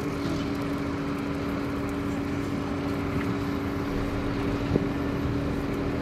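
Heavy earthmoving machine's diesel engine running steadily with an even hum, and a single short knock about five seconds in.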